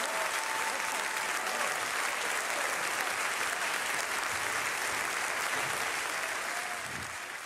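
Large seated audience applauding steadily, the clapping beginning to die away near the end.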